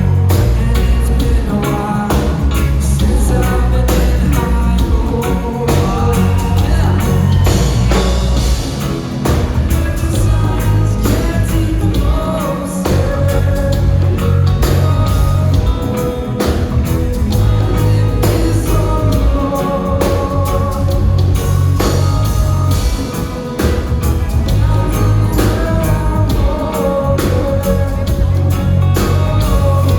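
A reggae band playing live with a lead vocal over a heavy, pulsing bass line and a steady drum beat.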